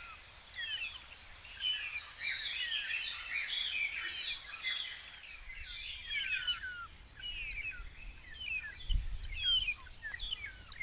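A dense chorus of small birds chirping, many quick overlapping notes that slide downward, with a brief low rumble about nine seconds in.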